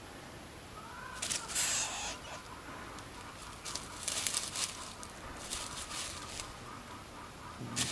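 Dry straw and sandy soil rustling and scratching in several short bursts as a cat paws and digs at a mole's burrow.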